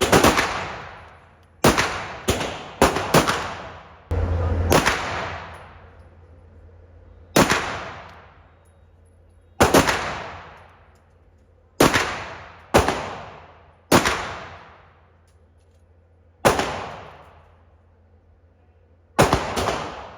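Single pistol shots from a CZ Czechmate, about fifteen fired at an uneven pace, some in quick pairs, each with an echoing tail. A muffled thump about four seconds in runs into one of the shots.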